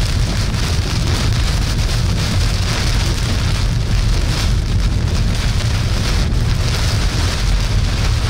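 Heavy rain hitting a moving vehicle, a steady dense hiss over a constant low rumble of road and wind noise.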